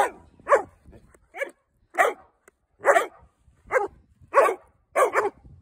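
A dog barking repeatedly: about nine short barks, spaced roughly half a second to a second apart.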